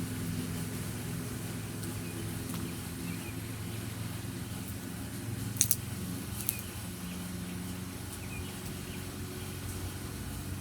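A steady low mechanical hum runs throughout, with a couple of sharp clicks about halfway through.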